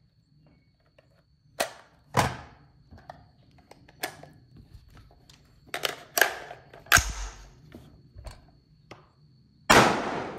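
A Colt AR-15 being fired and its action worked: a string of sharp bangs and metallic clacks at uneven gaps, with the loudest report near the end, ringing on. The bolt is locking back early, a cycling malfunction tied to the bolt carrier and buffer being tested.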